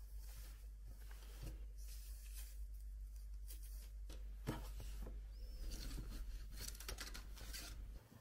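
Cloth rustling as hands handle a ribbon-tied bundle of muslin cloths and a cotton drawstring bag. There is a soft knock about four and a half seconds in, denser rustling after it, and a low steady hum underneath.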